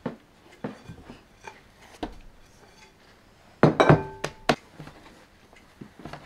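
Kitchen handling noise: scattered soft knocks and taps while dough is worked, then about three and a half seconds in a loud cluster of knocks and clinks with a short ringing tone, from a glass mixing bowl being handled on the counter.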